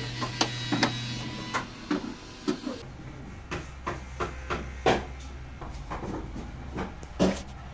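Irregular sharp knocks and taps of work going on in a wood box workshop. A steady low hum comes in about three seconds in.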